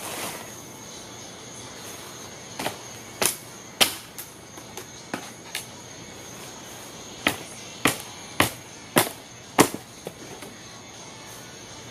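A hammer striking wood in two runs of evenly spaced blows, three and then five, a little under two blows a second, with a few lighter knocks in between.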